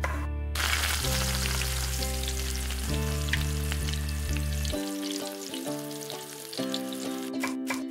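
Diced chicken and carrot strips sizzling in hot olive oil in a wok while being stirred with a silicone spatula. The sizzle starts about half a second in and stops shortly before the end. Background music plays underneath.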